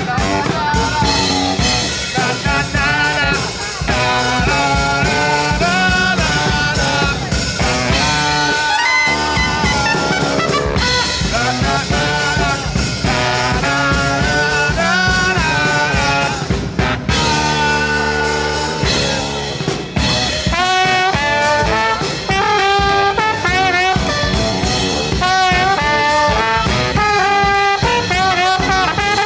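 Brass street band playing a loud, upbeat jazz tune live: trombone and saxophone lines over a drum beat, with a held chord about two-thirds of the way through.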